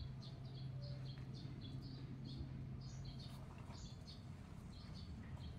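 Small birds chirping, short high chirps about three a second, over a faint low steady hum that stops a little past halfway.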